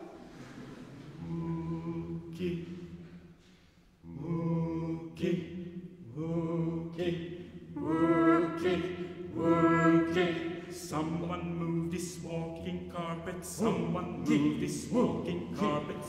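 Male vocal quartet singing a cappella in close harmony. The voices thin out and nearly stop about three seconds in, then come back fuller a second later.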